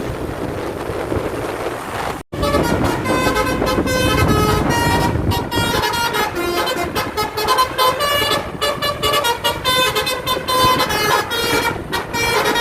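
Wind and road noise. After a sudden break about two seconds in, a bus's basuri-type telolet horn plays a quick melody of short notes that jump in pitch, continuing to the end.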